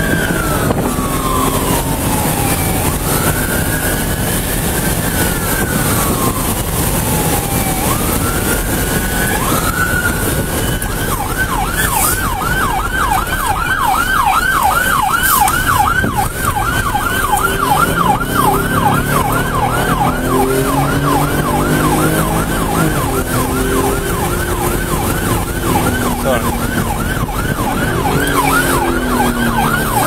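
Police car siren heard from inside the patrol car's cabin during a pursuit: a slow rising-and-falling wail for about the first ten seconds, then switching to a fast yelp of about three sweeps a second, over the car's running noise.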